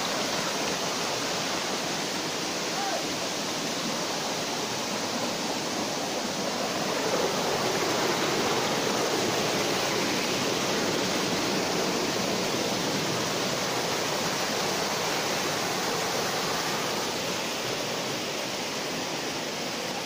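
Steady rush of falling water from a waterfall, an even hiss-like noise with no pauses, swelling slightly in the middle.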